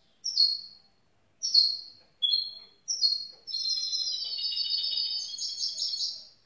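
Young goldfinch mule (goldfinch × canary hybrid) singing: four short, high chirped notes about a second apart, then a continuous warbling phrase of about three seconds.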